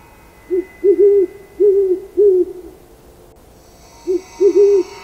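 An owl hooting: a phrase of five low hoots, a short one, a quick double, then two longer ones, with the same phrase starting again near the end.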